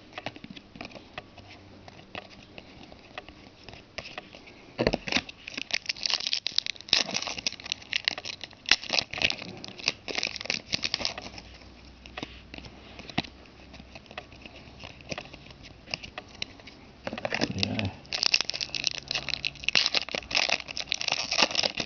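Trading card pack wrappers crinkling and tearing as packs are opened and the cards handled, in two busy stretches of crackling about five seconds in and again near the end, with lighter handling between.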